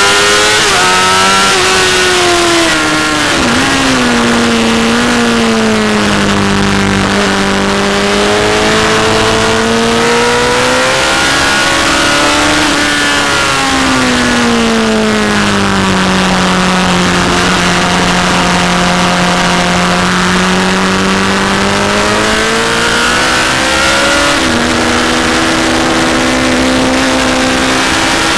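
Onboard sound of a Honda CBR1000 sportbike's inline-four engine at track speed, under heavy wind rush on the microphone. The engine pitch slides down and back up several times, with short kinks from gear changes about three seconds in and near the end.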